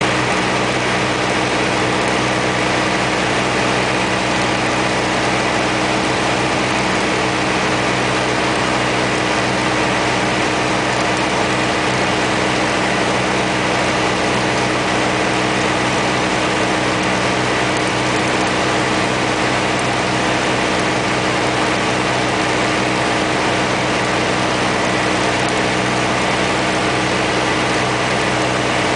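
Piper Archer's single piston engine and propeller droning steadily in level cruise flight, with an even hiss of airflow, heard from inside the cabin.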